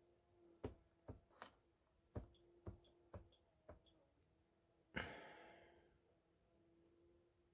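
About seven short, sharp taps over three seconds, as keys are pressed to enter beats into a SpecDrum drum-machine pattern on a ZX Spectrum. About five seconds in comes one louder hit that fades away over about a second.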